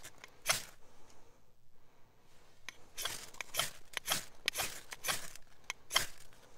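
Rustling, crinkling and scraping of a rucksack's fabric and straps being handled, with scattered sharp clicks. The sounds are sparse and quieter in the first half and come thick and fast from about three seconds in.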